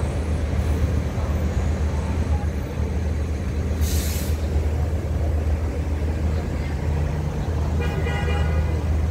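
City street traffic: a steady low engine rumble from idling vehicles, with a short hiss about four seconds in and a brief pitched sound near the end.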